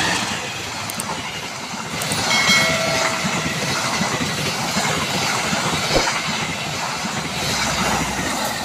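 Passenger train passing close by, a diesel locomotive followed by stainless-steel coaches, with a steady rumble and wheels clacking over the rail joints. A brief higher tone sounds about two and a half seconds in.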